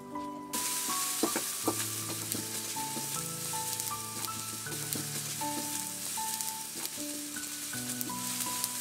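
Chopped food going into hot oil in a wok, sizzling steadily from about half a second in, with the spatula scraping and tapping the pan as it is stirred. Background music plays throughout.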